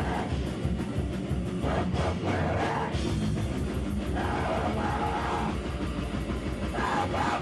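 Live band playing heavy rock music with electric guitar and drum kit.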